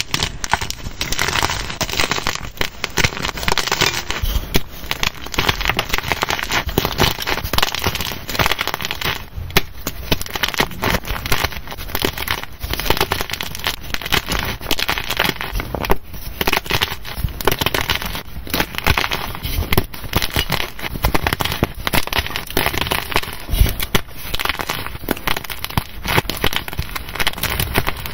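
Blocks of gym chalk (magnesium carbonate) crushed and broken apart in the hands, a dense, continuous run of dry crunches and crackles.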